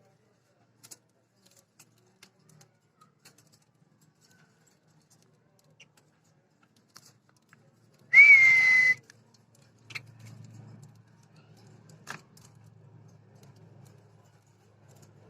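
A single loud whistle about eight seconds in, rising briefly and then held on one pitch for under a second, among faint scattered clicks.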